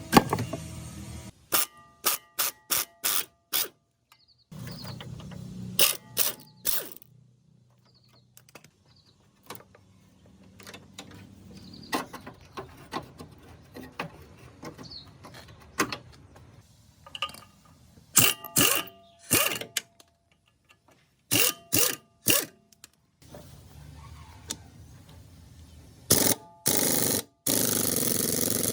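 Irregular clusters of short, sharp mechanical clicks and clacks with pauses between them, and a louder steady noise coming in near the end.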